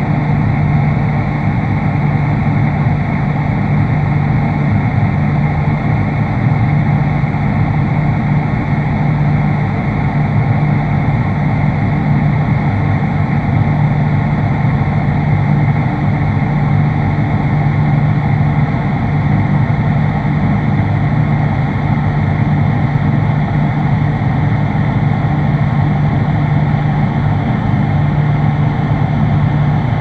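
Freezer running: a steady mechanical hum with a strong low tone and an even whir over it, unchanging throughout.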